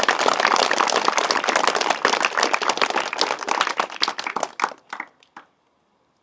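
A small group applauding, many hands clapping, dying away with a few last claps about five seconds in.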